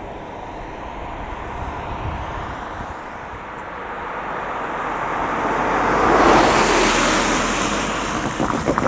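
A car driving past, its tyre and road noise swelling to a peak about six seconds in and fading as it moves off, then a few short knocks near the end as its wheels run over the level-crossing rails.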